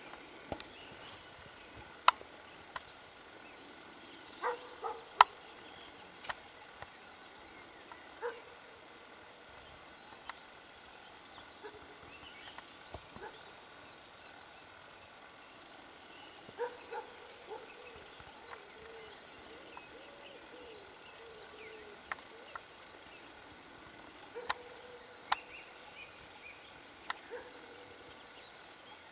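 Wild boar sows and piglets making scattered short grunting calls, some drawn out over a second or two. Sharp clicks are spread among the calls.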